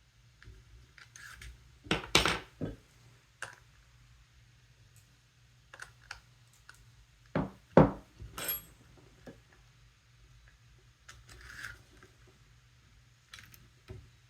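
Small metal tools and parts being handled, clicking and clattering on a hard work surface. The loudest knocks come in two clusters, about two seconds in and again around eight seconds in, with lighter ticks between.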